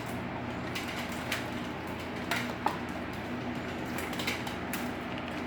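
Mainstays 20-inch box fan running on its low setting: a steady whir of moving air over a faint motor hum, with a few light plastic clicks from the fan being handled.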